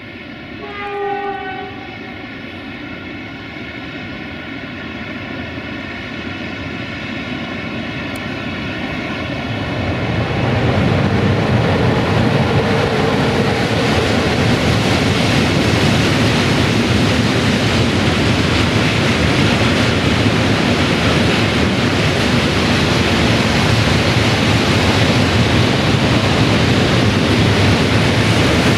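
060-EA (LE5100 kW) electric freight locomotive approaching with a steady whine, and a brief horn note about a second in. From about ten seconds in, a loud steady rumble of tank wagons' wheels rolling past on the rails.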